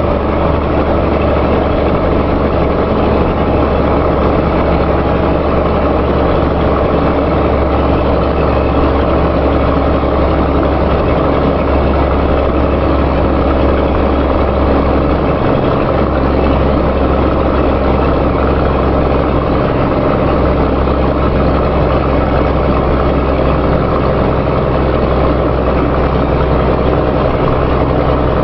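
Vehicle engine idling steadily with a rumbling exhaust.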